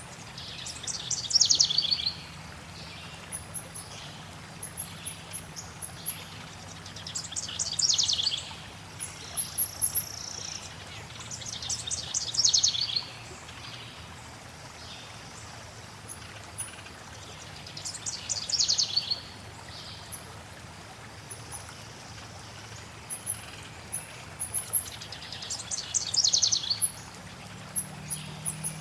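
Songbirds singing over steady flowing water: one bird repeats a short, loud phrase of rapid notes sliding downward, five times at intervals of about five to seven seconds, while other birds give frequent very high, tiny chirps.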